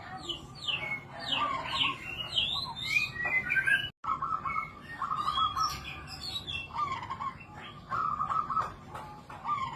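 Zebra dove (perkutut) giving short trilled coos, mixed with other small birds' quick falling chirps. The sound drops out for an instant about four seconds in.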